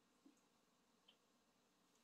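Near silence: room tone, with two faint soft ticks, one just after the start and one about a second in.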